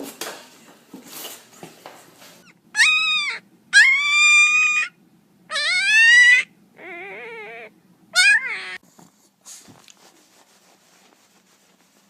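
A dog whining in five drawn-out, high-pitched cries that bend in pitch, the fourth lower and quieter than the rest, after a couple of seconds of faint rustling.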